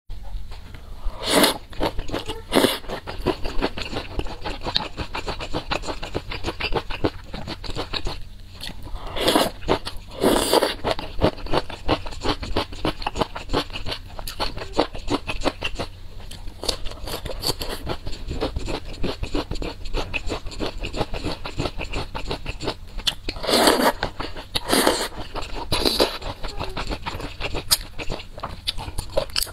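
Close-miked crunchy chewing of lotus root slices, with a dense run of fine crackles and a few louder bites scattered through.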